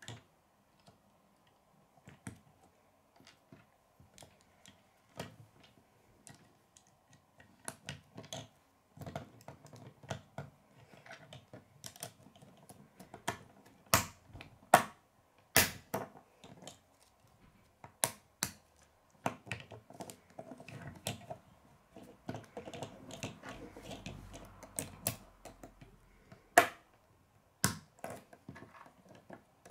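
K'nex plastic rods and connectors being handled and snapped together, with irregular clicks throughout. The sharpest snaps come about halfway through and again near the end.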